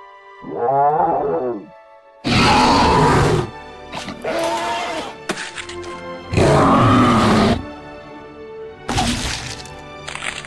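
Dinosaur roar sound effects: five loud roars about a second long, a second or two apart, the first more of a pitched, wavering call, over steady background music.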